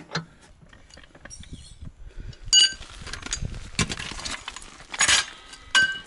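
Hand-tool work on a steel bolt and bracket: scattered metallic clicks and small knocks, with a short ringing metal clink about two and a half seconds in and another near the end.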